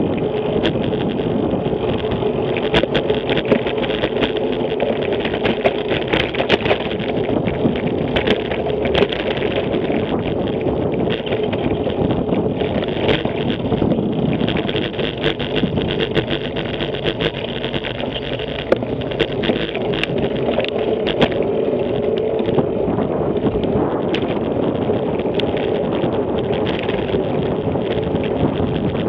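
Wind and road noise on a camera carried on a moving bicycle: a steady rumble with frequent small knocks and rattles as the bike runs over the road surface, with city traffic alongside.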